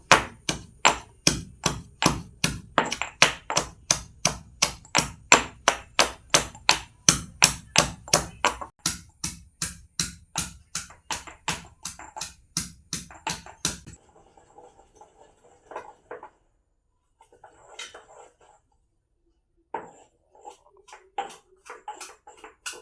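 Betel leaves packed with garlic, black pepper and ginger being pounded on a grinding stone, about three steady strikes a second. The pounding stops about fourteen seconds in, followed by quieter, scattered knocks and handling sounds.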